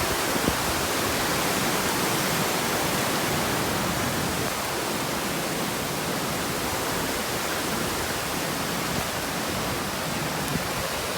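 Steady hiss of heavy rain falling in a typhoon.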